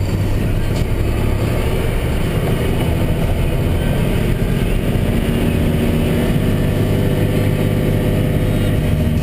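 Diesel engine of a 2012 Mack Granite plow truck running steadily, a low, even drone.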